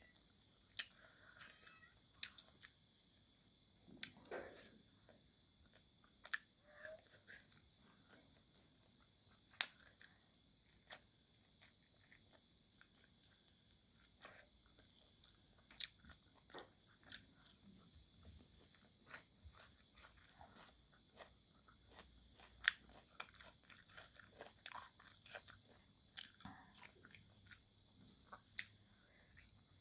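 Faint crickets chirping steadily, with scattered soft clicks and smacks of someone chewing food close to the microphone.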